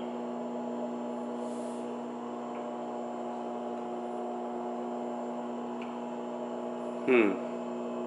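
Microwave oven running, a steady electrical hum at one fixed pitch. A short spoken sound cuts in near the end.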